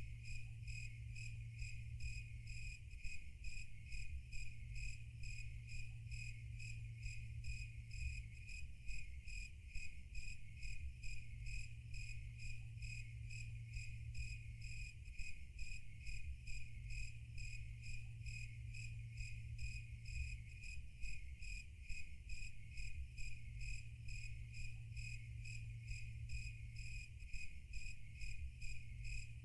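Crickets chirping in a steady, evenly repeated high-pitched rhythm over a low steady hum.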